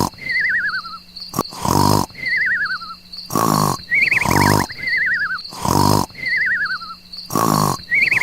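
Looped sound effect: roar-like blasts alternating with falling, warbling whistle tones, repeating evenly about every one and a half to two seconds.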